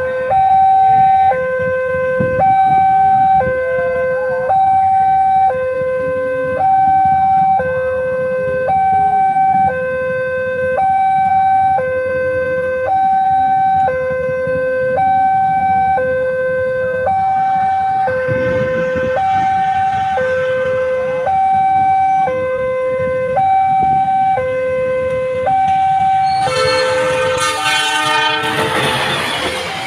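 Railway level-crossing warning alarm sounding a steady two-tone signal, a higher and a lower tone alternating about once a second, warning that a train is coming. Near the end a diesel locomotive reaches the crossing and its passing noise rises over the alarm.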